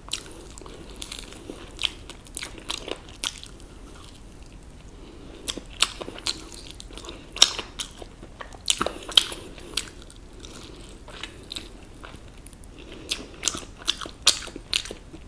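Crispy fried chicken being bitten and chewed close to the microphone: sharp, crackly crunches come in clusters, with quieter chewing between them.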